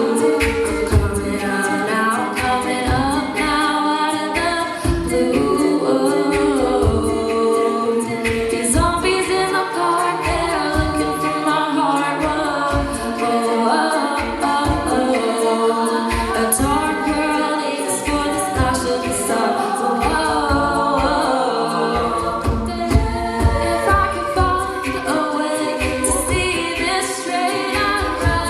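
Treble-voiced a cappella group singing in close harmony, with vocal percussion marking a steady beat in low thumps underneath.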